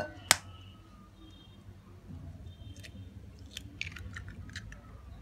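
A sharp knock about a third of a second in, then a hen's egg being cracked: its shell makes a few small, sharp crackles as it is broken open and pulled apart over a glass bowl.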